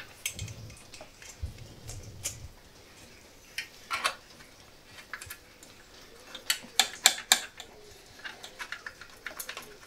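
Stainless steel exhaust stub pipes and their clamps clinking and knocking against a Triumph Scrambler 1200's header pipes as they are worked on by hand, a tight fit. Irregular sharp metallic clicks, thickest around the middle, with a low handling rumble in the first couple of seconds.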